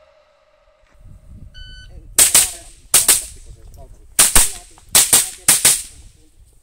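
A shot-timer start beep, then five shots from a .22 LR minirifle at a steady pace over about three seconds.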